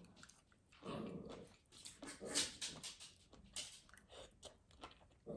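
A dog whining and grumbling in short separate bursts, several times over, vocalising for attention.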